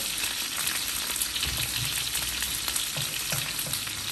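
Chicken pieces frying in hot oil in a pan: a steady sizzle with many small crackles and spits of oil.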